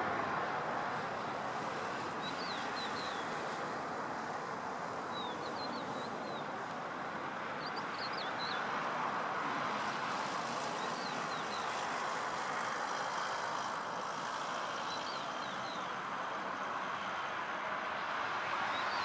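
Four-engined Airbus A340 jet airliner on final approach and flaring to land: a steady, even rush of jet engine noise. A small bird's short chirping phrases come in every two to three seconds.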